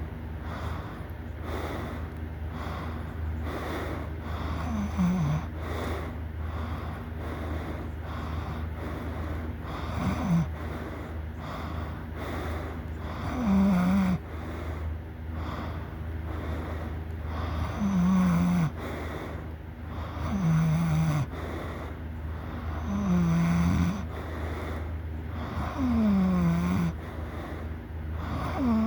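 A sleeping person snoring loudly: about eight snores a few seconds apart, several of them falling in pitch.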